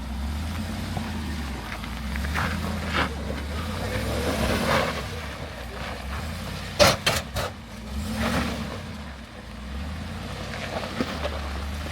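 Off-road vehicle's engine running at low revs as it crawls over rock, with a quick run of three sharp knocks about seven seconds in.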